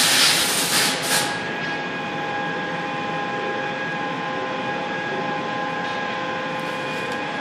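Steady hum of running plant machinery with several constant tones. In the first second there is a loud hissing burst, and a shorter one follows just after.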